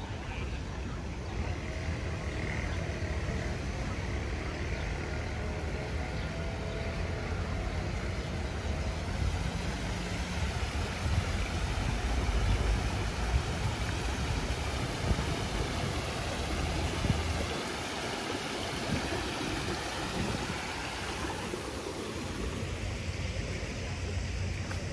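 Street ambience: a steady wash of a fountain's water spilling over a low step, over a low traffic rumble that eases about two-thirds of the way through.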